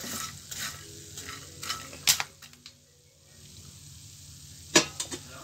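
A spoon stirring freshly popped popcorn in a metal pan: soft rustling of the popcorn with scattered sharp clicks against the metal, one about two seconds in and a louder one near the end.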